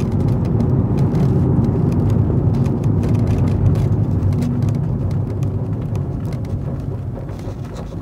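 Cabin noise of a Fiat Doblo cargo van on the move: steady engine and road drone with faint rattles, growing quieter toward the end as the van slows.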